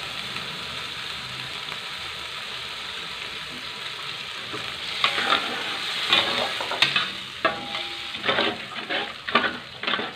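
Chili spice paste sizzling in a metal wok as tamarind water goes in. About halfway through, a metal spatula starts scraping and stirring against the wok in quick, irregular strokes.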